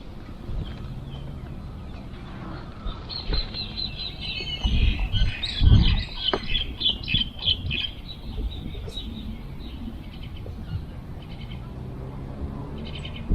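Small birds chirping in quick, repeated notes, busiest from about three to seven seconds in, over a steady outdoor background hum. A low rumble swells briefly about five to six seconds in.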